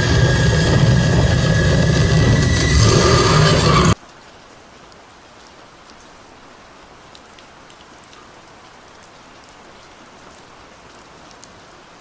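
Homemade sound effect: a loud rushing noise with steady whistling tones that cuts off suddenly about four seconds in. It leaves a faint hiss with light crackles.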